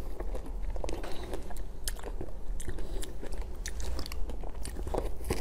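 Close-miked biting and chewing of crunchy food, a strawberry dipped in a colourful coating: a run of sharp, irregular crunches.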